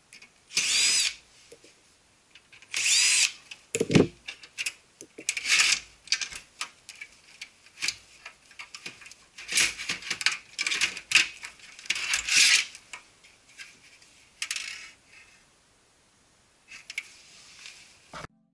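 Cordless screwdriver whirring in a few short runs as it takes out the screws holding the copier's power supply board. These are followed by many short clicks and rattles as the board's wiring harness connectors are unplugged and handled.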